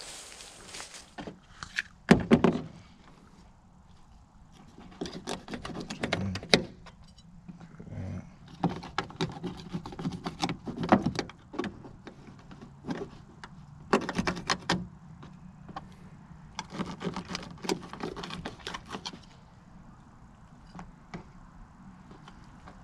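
Irregular scraping, rustling and light knocks as a dead gray squirrel is handled and cut with a knife on a plastic pickup bed liner, in short bursts with pauses between.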